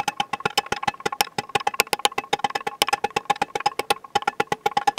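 Mini sledgehammer tapping a brass drift in quick, light, even strokes, about nine taps a second, each tap ringing. It is driving a balance-shaft delete plug flush into its bore in a bare Atlas engine block.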